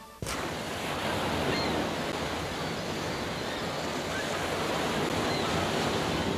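Steady rush of sea surf with wind, cutting in suddenly a moment in.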